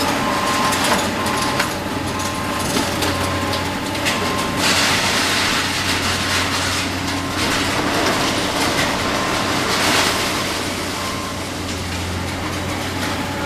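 Excavator tearing down a steel-framed building: the diesel engine's steady low drone under heavy crunching and clattering of sheet metal and debris, louder about five and ten seconds in. A reversing beeper sounds in regular short beeps through the first four seconds and again briefly near the end.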